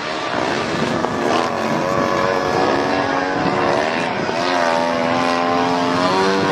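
Radio-controlled aerobatic model airplane flying, its engine and propeller running steadily with the pitch rising and falling as it throttles and manoeuvres.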